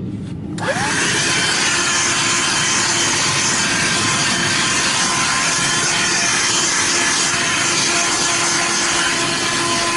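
A vacuum cleaner switched on about half a second in: its motor whine rises quickly to speed, then it runs steadily with a loud rushing hiss.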